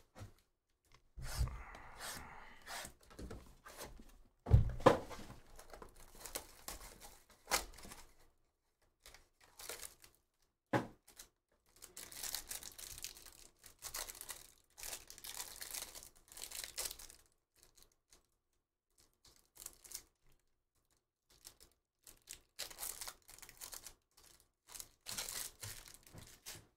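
Trading card box and packs being opened by hand: wrappers torn and crinkled, with cards handled and a few dull knocks on the tabletop, the loudest about four seconds in. The rustling and tearing come in longer stretches around the middle and near the end.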